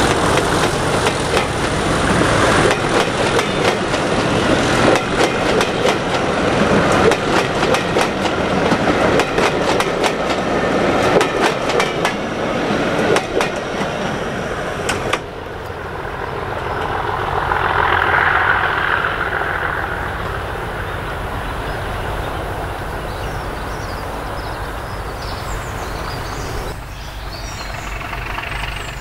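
Passenger train behind a class 47 diesel locomotive rolling past, its coach wheels clicking rapidly over the rail joints. About halfway through the sound drops suddenly to a quieter, steady rumble.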